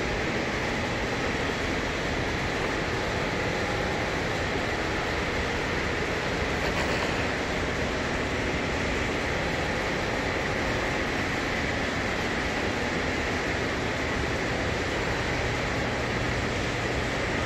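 Steady, unbroken rushing background noise, even in level throughout, with no pitched engine note or distinct strokes.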